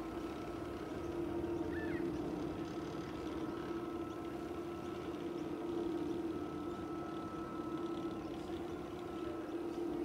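Electric motor of a Luxaflex MagnaTrack external roller sunscreen running as the screen rolls up: a steady, even hum with a faint higher whine above it.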